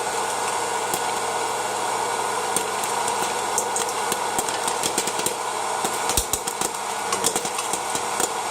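West Bend Air Crazy hot-air popcorn popper running with a steady fan whir while kernels pop inside it, the sharp pops coming more often in the second half.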